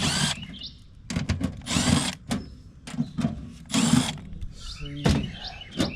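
Cordless drill/driver spinning up in about four short bursts, each rising in pitch, with clicks between them, as it backs screws out of a sheet-metal unit panel.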